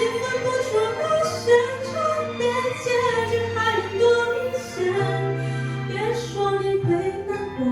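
A woman singing a pop song over instrumental accompaniment.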